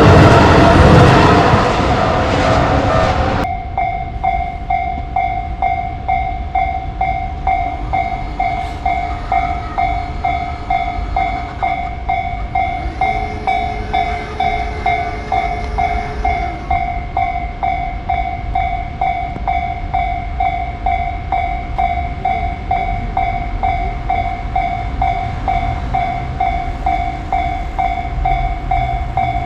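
A train going by loudly, cut off abruptly about three and a half seconds in. Then a Japanese level crossing's electronic warning bell rings steadily at about two strikes a second.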